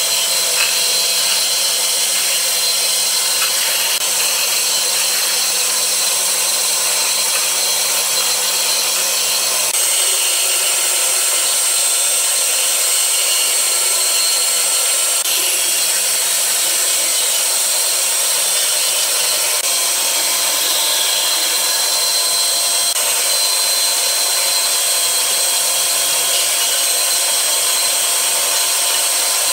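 Bandsaw running steadily and cutting through a pine board, an even whirring saw noise with a low hum that drops out about ten seconds in.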